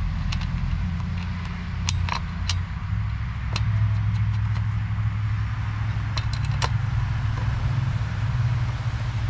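An engine idling steadily, its low hum growing stronger about three seconds in, with scattered small metallic clicks and clinks from a chainsaw being worked on by hand during a chain change.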